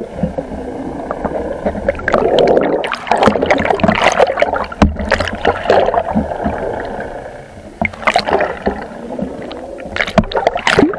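Muffled gurgling and sloshing of seawater around a camera held underwater, in irregular surges with scattered knocks and bubbling. The noise eases briefly past the middle, then swells again.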